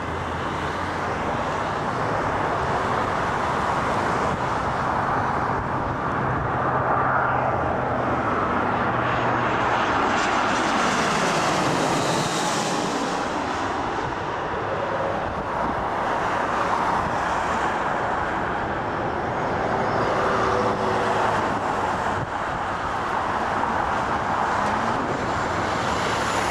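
Twin-engine jet airliner on final approach passing low overhead with its landing gear down: steady, loud jet engine noise that swells and turns brighter as it goes over, about twelve seconds in, then eases as it heads away toward the runway.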